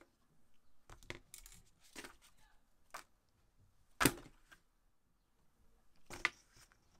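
Handling noise as a coiled headset cable with its USB sound card, a manual and a mesh carry bag are put down on a tabletop by gloved hands. A few scattered light knocks and rustles, the loudest about four seconds in.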